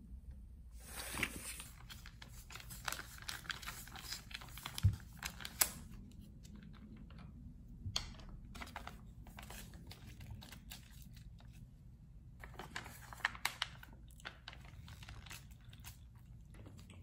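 Plastic spout pouches of konjac jelly crinkling and rustling as they are handled, with scattered small clicks and taps, busiest in the first few seconds and again briefly near the end.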